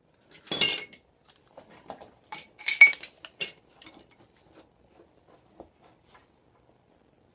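Metal hand tools clinking and clattering as they are handled, with two louder ringing clinks about half a second and about three seconds in, and smaller taps and knocks after them.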